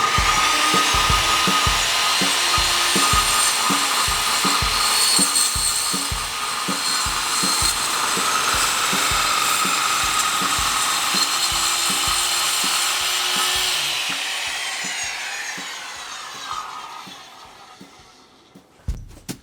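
Circular saw cutting through a wooden door to trim about half an inch off it, running steadily for about fourteen seconds, then the blade spinning down with a falling whine. Background music with a steady beat underneath.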